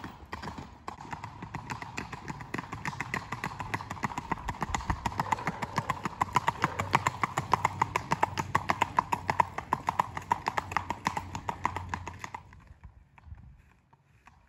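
Hooves of a gaited gelding striking a paved lane in quick, even hoofbeats under a rider. The hoofbeats grow louder as the horse comes closest and fade away about twelve seconds in.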